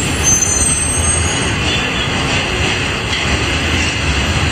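Steady, loud heavy-vehicle running noise, with a few thin high tones just after the start.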